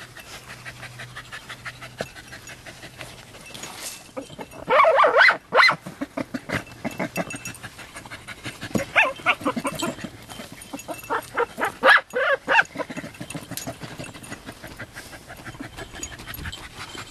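Jagdterriers barking and whining excitedly at an armadillo in three loud bursts, with rapid panting and scuffling between them.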